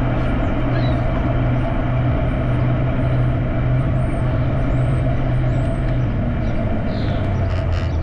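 Street traffic noise with a steady low engine hum from a motor vehicle close by, which drops slightly in pitch about six seconds in.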